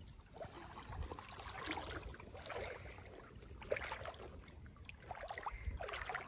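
Shallow stream water trickling and gurgling over stones, a faint run of small irregular splashes and drips over a low rumble.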